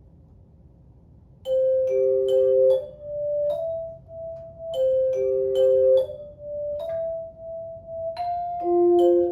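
Tone chimes playing a slow melody, often two notes at once. Each note starts with a soft strike click and rings on. The playing begins about a second and a half in, after a quiet pause.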